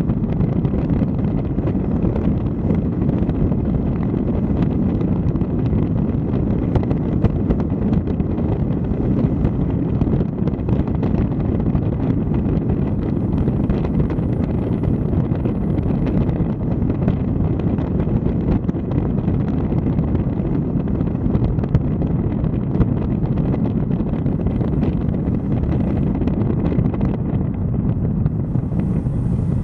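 Wind buffeting the microphone of a camera on a moving vehicle, over the low rumble of the vehicle driving uphill. A steady, even noise, heaviest in the low range.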